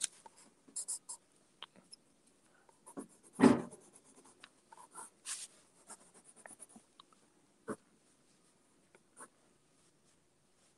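Coloured pencil scratching on paper in short, uneven strokes as shading is laid in, with a louder thump about three and a half seconds in and a single click near the end.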